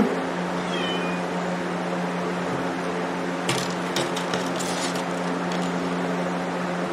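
Steady low mechanical hum, like a fan or air conditioner running, with a short falling chirp about a second in and a quick cluster of clicks and taps about three and a half seconds in.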